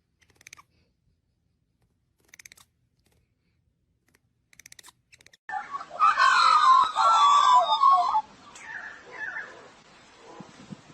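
A few faint, short ticking bursts, then a bird screeching loudly for about two and a half seconds, followed by quieter squawks.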